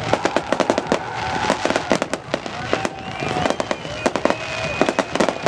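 Fireworks display bursting overhead: rapid sharp pops and crackling bangs, several a second, with a few gliding tones mixed in.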